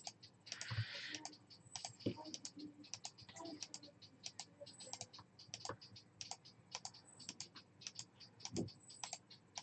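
Faint, irregular clicking of computer keyboard keys, several strokes a second, like light typing.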